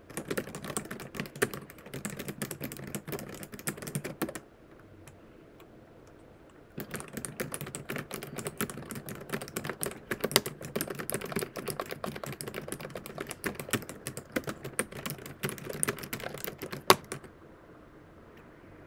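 Computer keyboard typing: a fast, continuous run of key clicks that pauses for about two seconds a few seconds in, then resumes. One key strike near the end is louder than the rest, and the typing stops shortly after it.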